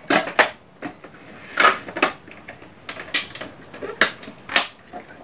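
Plastic parts of a juicer-blender's juicer unit clicking and knocking as the lid is seated and its two locking clips are snapped shut, in a series of sharp clicks spread over a few seconds.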